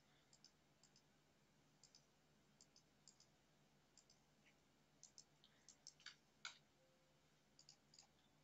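Faint computer mouse clicks, a dozen or so scattered through, many in quick pairs, with near silence between.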